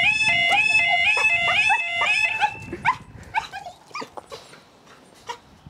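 Railway level crossing warning alarm sounding a warbling two-tone yodel that signals the barriers are lowering for an approaching train. It cuts off suddenly about two and a half seconds in, followed by faint clicks and short chirps.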